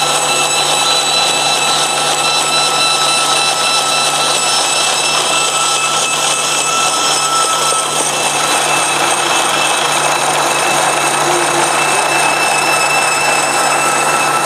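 Bandsaw with a one-inch honeycomb-style blade running and cutting through a roll of adhesive-backed foam tape at its core: a steady hum under a few high, steady whining tones.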